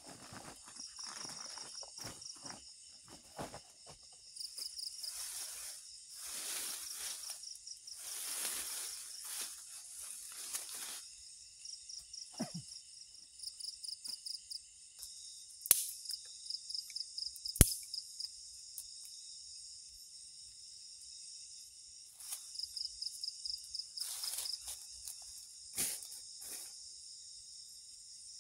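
Night insects chirp steadily in a high chorus, with short trains of pulsed chirps repeating. Over them come rustling and crunching in dry leaf litter as someone moves and settles on the ground, and two sharp snaps a couple of seconds apart past the middle.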